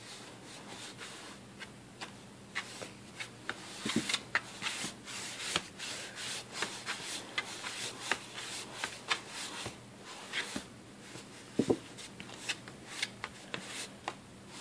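A cat scratching and pawing at a cardboard box with its claws: a quick, irregular run of dry scratches, with two louder bumps about four seconds in and again near twelve seconds.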